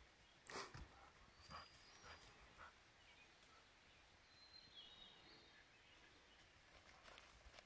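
Near silence in a forest, broken by a few faint scuffs and rustles from dogs scrambling around a tree stump, mostly in the first two seconds. Faint high bird chirps come about four and five and a half seconds in.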